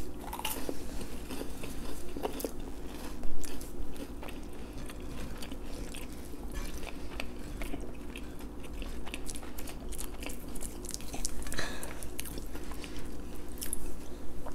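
Close-up eating sounds: a person biting and chewing crusty garlic bread, with many small crunchy clicks. One louder thud about three seconds in.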